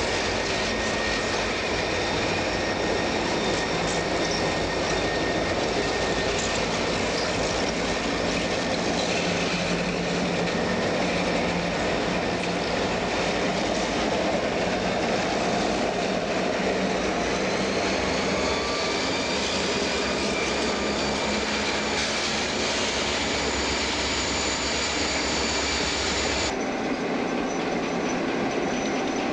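EMD diesel-electric freight locomotives passing under power, their engines running together over the rumble of steel wheels on rail as the freight cars follow. The sound changes abruptly near the end.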